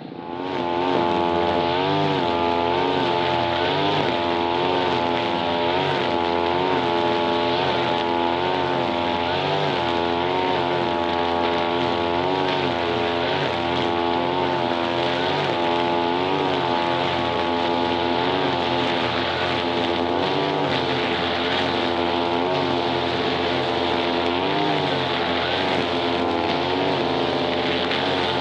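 Grass-cutting machine's small petrol engine running at high speed, coming up to full speed within the first second. Its pitch dips and recovers every second or two.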